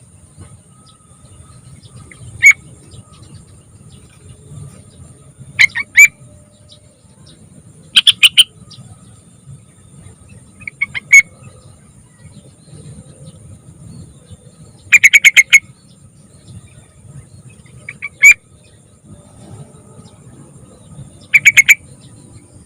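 Young yellow-vented bulbul (trucukan) singing: short bursts of quick, bubbly notes, about eight phrases a few seconds apart. A faint steady high whine and low rumble lie underneath.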